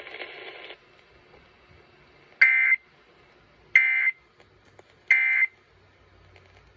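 Emergency Alert System end-of-message data signal: three short bursts of screeching two-tone digital data, about a second apart, marking the end of the alert.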